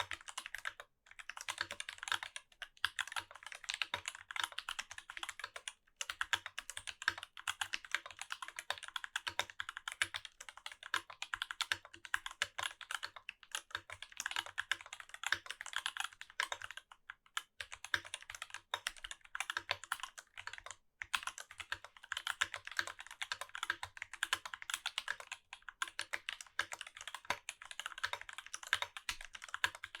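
Typing on a Rama U80-A mechanical keyboard with Durock T1 tactile switches, lubed with Krytox 205g0 and fitted with TX films, on a brass plate with GMK keycaps. Keystrokes come in a fast, steady stream, broken by a few short pauses.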